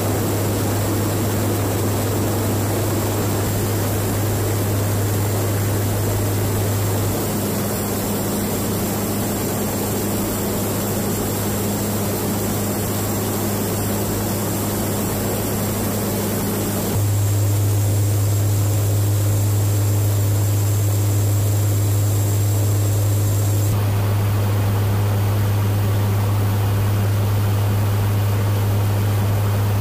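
Cabin noise of a KC-130J Super Hercules: its four turboprop engines and propellers running with a loud, steady low drone and rushing noise. The sound shifts abruptly about 7, 17 and 24 seconds in.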